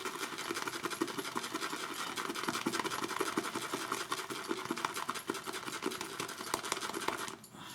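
Boar-bristle shaving brush whisked fast around a bowl, building a wet lather from shaving soap: a rapid, even run of swishing strokes that stops near the end.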